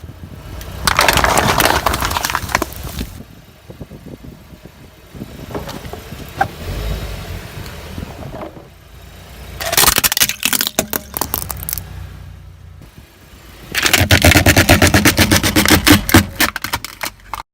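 Objects cracking and crunching as a car tyre rolls over and crushes them, in three bursts of dense crackling: about a second in, again around ten seconds in, and through most of the last four seconds.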